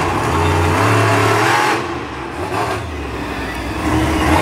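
Loud engine of a competition vehicle running hard on the track. It eases off about two seconds in and builds again near the end.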